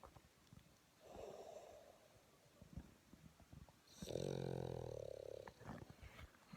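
Boston terrier snoring in its sleep. A softer, raspy breath comes about a second in, then a louder snore with a clear pitch about four seconds in that lasts about a second and a half.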